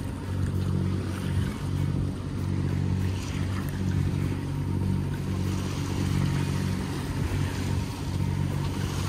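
Hunter 356 sailboat under power: the steady low hum of its inboard diesel engine, with water rushing and splashing along the hull.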